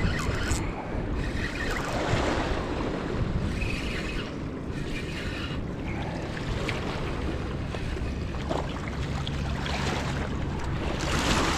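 Wind buffeting the microphone over small river waves lapping at a gravel bank: a steady rushing hiss with a low rumble, swelling into a louder gust near the end.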